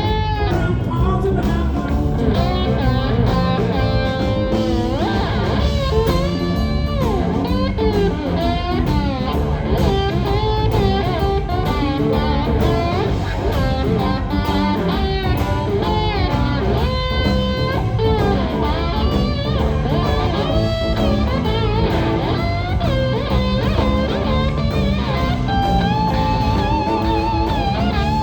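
A blues-rock band playing live, with an electric guitar taking the lead in bent, gliding notes and a long wavering held note near the end.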